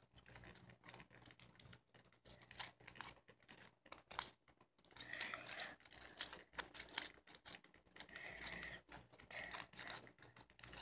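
Faint, irregular crinkling and sticky crackling from hands kneading fluffy glue-and-shaving-cream slime over a plastic sheet.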